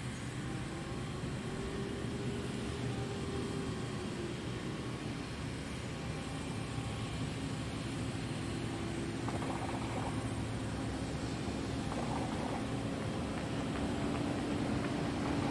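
A pickup truck and the truck-mounted attenuator truck following it drive toward the microphone on a straight test track. Their engine and tyre noise grows steadily louder as they approach.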